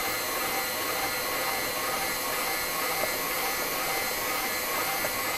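A steady, even rushing hiss of background noise that holds unchanged throughout, with no distinct knocks or other events.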